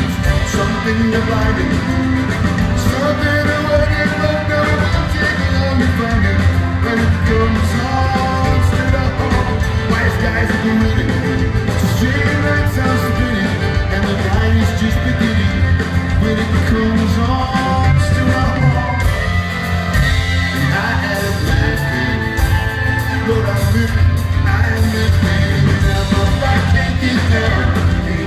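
Live band playing a folk-rock song through the hall's PA, with a strong bass and drum beat, guitars and singing.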